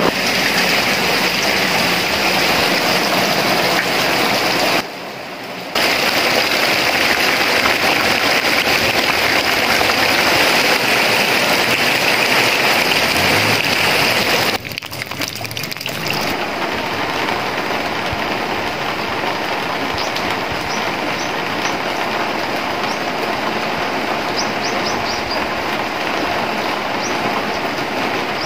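Heavy rain pouring down, a steady dense hiss that dips briefly twice. A few short high chirps sound in the second half.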